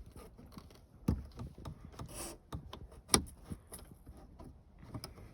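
Sunroof vent trim piece being handled and pressed onto the sunroof shade: scattered light clicks, knocks and rubbing, with the sharpest click about three seconds in.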